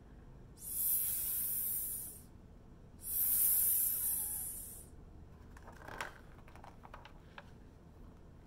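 A woman's voice making a long hissing 'sss', the S sound that the book ties to a snake, twice. Then a brief rustle and crackle of a large paper page being turned.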